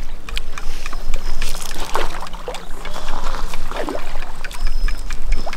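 Water lapping and slapping against the hull of a small boat, with many short splashes and knocks over a steady low rumble.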